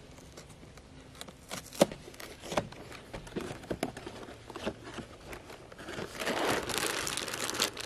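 Cardboard cereal box being opened by hand: scattered clicks and rustles of the flaps, with one sharp snap just under two seconds in, then a louder stretch of crinkling from the plastic liner bag near the end.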